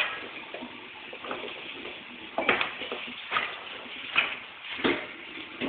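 Kitchen handling noises: about five short, sharp knocks and clicks in the second half, like utensils and dishes being moved about and set down.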